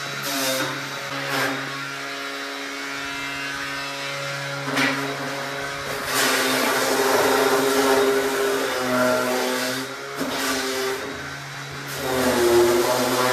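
Handheld electric palm sander running steadily while sanding wooden bed slats: a motor hum with a rough sanding hiss over it. It grows louder from about six seconds in and again near the end.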